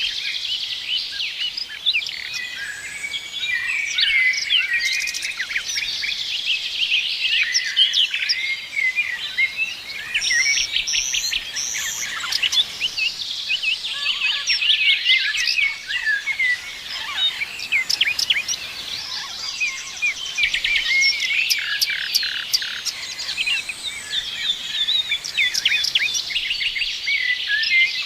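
Many small birds chirping and trilling at once, a dense unbroken chorus of short high calls overlapping one another.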